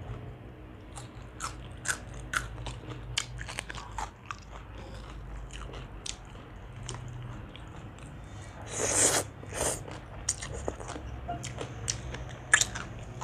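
Close-miked eating: a person chewing and biting food, with many short wet clicks and crunches and a louder crunch about nine seconds in.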